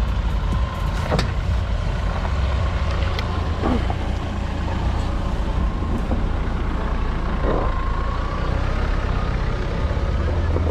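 Off-road jeep's engine running under load as it climbs a dirt track, a steady low rumble, with a few sharp knocks scattered through it.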